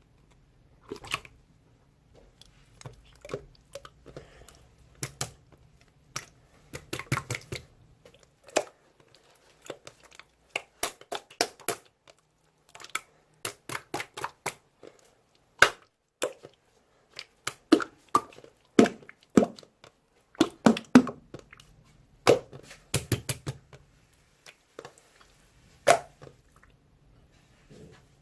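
Slime being squeezed and poked by hand, giving irregular sticky clicks and pops, some in quick runs.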